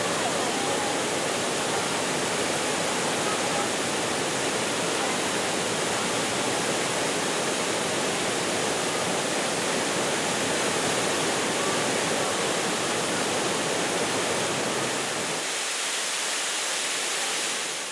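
Waterfall pouring down over rocks: a steady, dense rush of falling water. The deepest part of the rush drops away about three seconds before the end.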